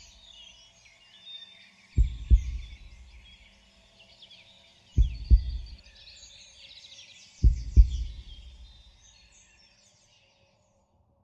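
A deep, heartbeat-like double thud (lub-dub) sounds three times, about every three seconds, over woodland birdsong full of quick chirps. The birdsong fades away near the end.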